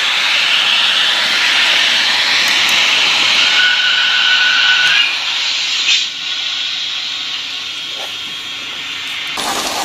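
Märklin model train running past on the layout track, a steady hissing running noise with a brief high tone about four seconds in. The noise drops quieter about five seconds in and rises again near the end.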